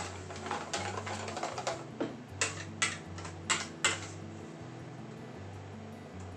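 Wire whisk beating batter by hand in a stainless steel bowl: quick, uneven clicks of the wires against the metal, about two or three a second, stopping about four seconds in.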